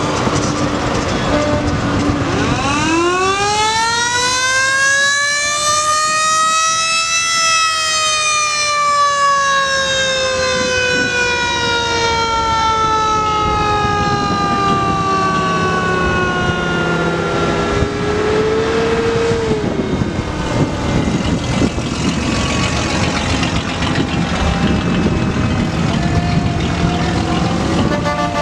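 An antique fire truck's mechanical siren winds up steeply from about two seconds in, peaks a few seconds later, then coasts down slowly over the next ten seconds or so. Truck engines run underneath.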